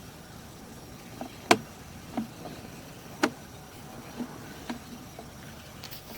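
Scattered short, sharp clicks and knocks, about half a dozen spread unevenly, over a low steady hiss.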